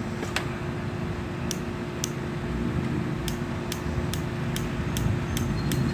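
About a dozen sharp, short clicks at irregular intervals, roughly two a second in the second half, over a steady low hum.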